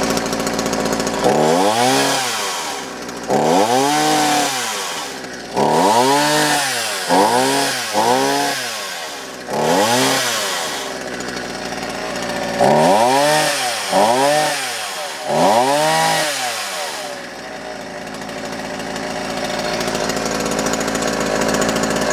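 Shindaiwa 300S two-stroke chainsaw running well: idling, then revved up and let back down about nine times in quick succession, then settling back to a steady idle for the last few seconds.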